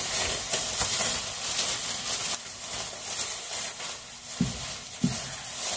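Thin plastic grocery and produce bags rustling and crinkling as they are handled and opened, with two light knocks near the end.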